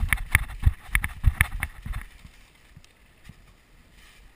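Running footsteps crunching through deep dry leaves, with heavy irregular thuds and crackle. They stop about two seconds in, and only a few faint rustles and ticks follow.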